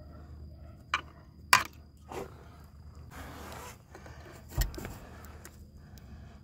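Metal hand tool clinking and scraping against a TorqueFlite transmission's tailshaft housing: a few sharp clicks in the first two seconds, the loudest about one and a half seconds in, a short scrape around three seconds, and a dull knock a little past four and a half seconds.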